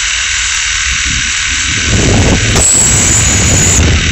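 Gas welding torch flame hissing steadily as it heats the butt joint of two rebars for pressure (fusion) welding. About halfway through, a louder low rumble joins it, with a brief high whistle on top for about a second.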